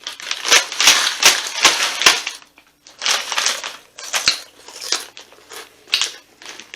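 Crunchy hot snack chips being chewed, close to the microphone: a quick run of irregular crunches for about two seconds, then sparser crunches with short gaps.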